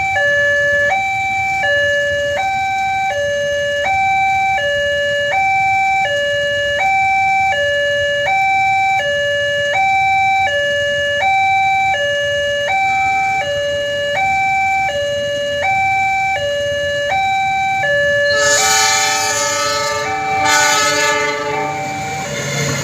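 Railway level-crossing warning alarm: two electronic tones alternating high-low, about one cycle a second, signalling that a train is coming. Near the end the train reaches the crossing and passes with a rush of noise, while a chord of several steady tones sounds for a few seconds, likely its horn.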